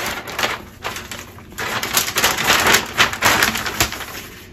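Plastic vacuum-sealer bag crinkling and rustling in the hands as a cardboard baking soda box is slid into it, in uneven crackly bursts with a short lull about a second in.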